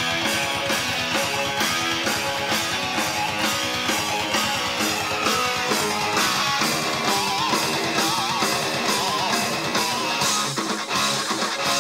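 Distorted electric guitar riff played on a Gibson Les Paul Custom through a Splawn Quick Rod amplifier and 4x12 cabinet, over a steady rock beat. From about seven seconds in, a few held notes waver with wide vibrato.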